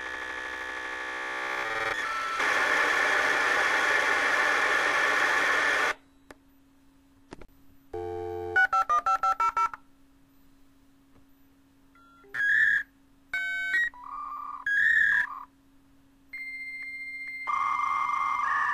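Dial-up modem connecting. The hissing handshake screech cuts off about six seconds in. After a pause comes a quick run of touch-tone dialing, then a few short tone bursts and a steady high tone, and a new handshake screech starts near the end.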